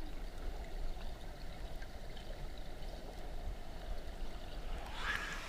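Steady, dull rush of flowing water at a waterfall and stream, with little brightness in it.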